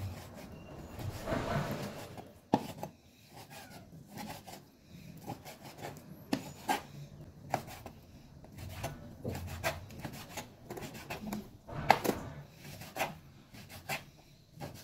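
Cleaver slicing raw pork on a bamboo cutting board: irregular knocks of the blade meeting the wood, with a longer scraping rub about a second in.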